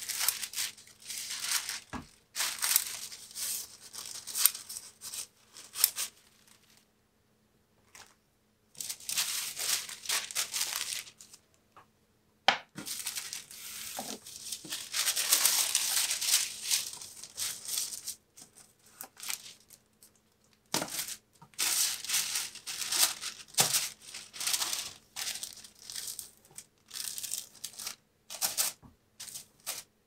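Thin white tissue paper rustling and crinkling as it is cut with scissors, lifted and handled, then smoothed flat. It comes in irregular bursts with a few short pauses.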